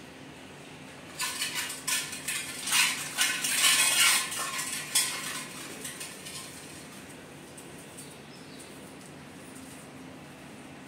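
Clattering and clinking of metal, a quick irregular run starting about a second in and dying away after about five seconds.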